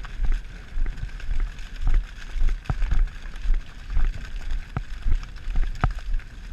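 Hoofbeats of the ridden horse on corn stubble, regular thuds about twice a second with crackles of stalks, over a low rumble of wind and movement on the microphone.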